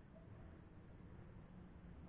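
Near silence: a faint, steady low background rumble.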